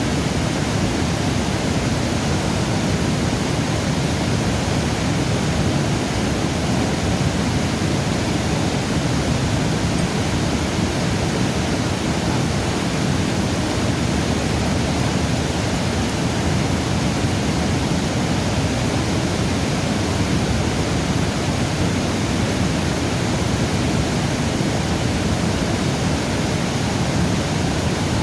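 River water rushing steadily: a continuous, even noise with no breaks.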